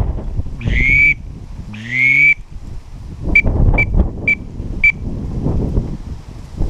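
A whistle blown in a series of high notes: two longer notes that rise into pitch, then four short pips about half a second apart, over wind buffeting the microphone.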